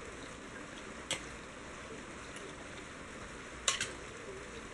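Beef pieces, chopped coconut, onion and spices being mixed by hand in a pot: a faint steady rustle of the wet mixture, with a sharp click about a second in and a quick double click near the end.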